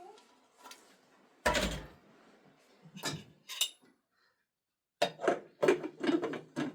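A heavy thud about one and a half seconds in, a couple of sharp clicks, then a quick run of knocks and clatters near the end, like wooden objects or a door being handled.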